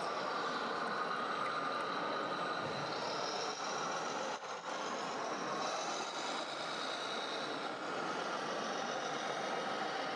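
Radio-controlled model trucks running: a steady whine of small motors and gears that drifts up and down in pitch.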